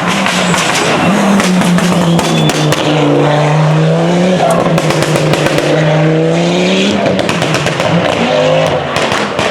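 Audi Quattro rally car's turbocharged five-cylinder engine at full throttle, its pitch climbing and dropping back several times as it shifts up through the gears. Sharp cracks and pops run through it.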